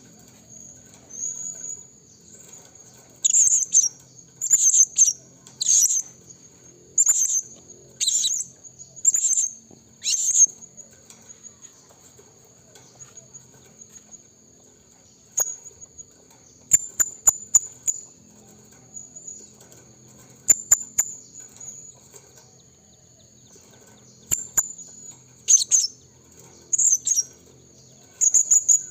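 Blue-crowned hanging parrot (serindit) giving short, shrill, high calls, one about every second for a while, then in scattered singles and quick clusters. A steady high insect drone runs underneath.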